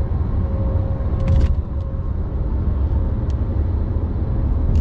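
A car driving: a steady low road rumble with a faint steady hum.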